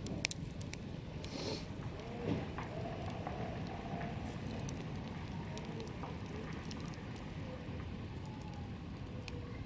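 Campfire burning, with wood crackling in irregular sharp pops over a steady low rumble. A brief hiss comes about a second and a half in.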